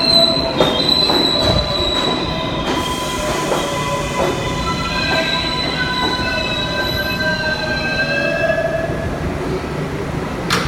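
New York City subway train slowing into a station, its wheels and brakes squealing in several high steady tones, with a short falling whine about two-thirds of the way through. A few sharp rail-joint clacks sound in the first two seconds.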